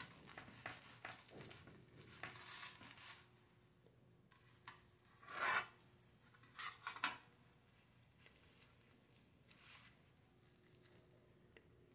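Knife and fork cutting through an oven-hardened bread roll on an aluminium pizza pan: the crust crackling and tearing, with scrapes of metal on the pan, in a few short bursts.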